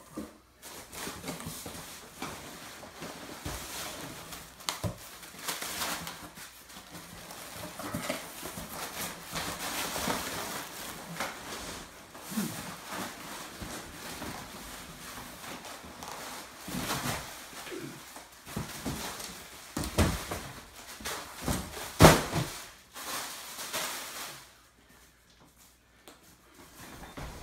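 Cardboard shipping box being unpacked: crinkling of plastic air-pillow packing and rubbing, sliding cardboard, with scattered knocks of cardboard on the table, the sharpest about two thirds of the way through.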